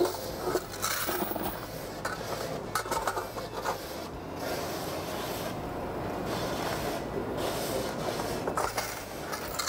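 Speed Queen commercial stack dryers running, their drums tumbling loads of clothes: a steady noise with a few light clicks and knocks.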